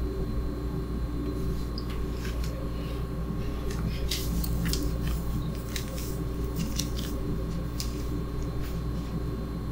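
Steady low hum of room noise with a faint constant tone, and scattered light clicks and rustles from about two seconds in.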